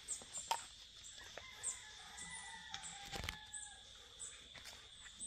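Quiet outdoor background of faint bird calls, with a few whistled notes about two to three seconds in, over a steady high-pitched whine. A few soft clicks and a dull thump about three seconds in.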